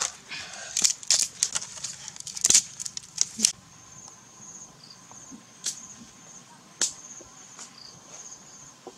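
Dry sticks clacking and knocking against each other as they are laid into a fire pile, a quick run of sharp clicks for the first three seconds or so. Then an insect trills steadily at a high pitch, with a few scattered clicks.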